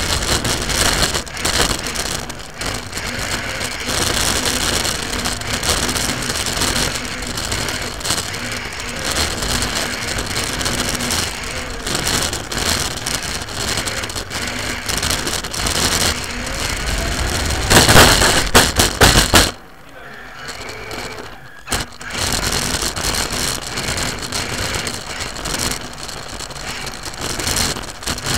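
RC car's running gear heard from on board while driving fast, a steady noisy rattle of motor, drivetrain and tyres. About eighteen seconds in comes a burst of loud clattering knocks, then the noise drops for about two seconds before it picks up again.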